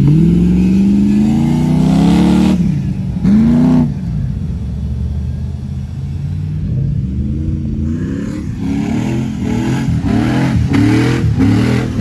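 Jeep engines revving hard on sand dunes. One long rev climbs in pitch for about two and a half seconds and breaks off, a short rev follows, and from about eight seconds in there is a run of quick rev bursts, up and down, as a Cherokee spins its tyres in the sand.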